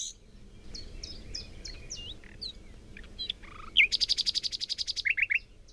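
Birdsong: scattered short whistled chirps and slurred notes, then a rapid trill about four seconds in, and three quick down-slurred notes near the end.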